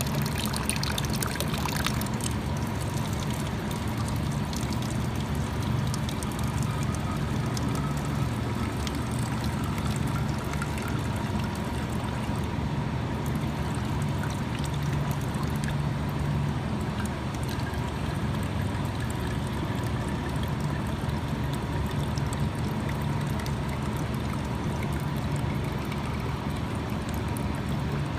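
Water pouring and trickling steadily from the outlet of a MultiGen air-conditioner water maker, over a constant low machine hum.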